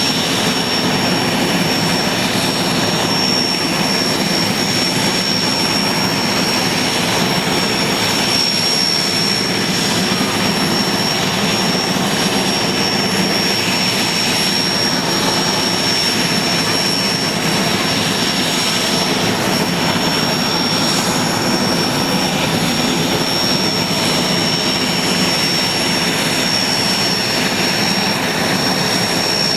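IAR 330 Puma helicopter's twin turboshaft engines and rotor running steadily, a continuous turbine rush with a high steady whine over it.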